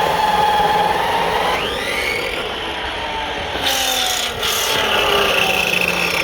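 TANK Tak-355D electric metal cut-off saw running, its motor whine shifting in pitch. The whine rises sharply about a second and a half in and changes again near four seconds.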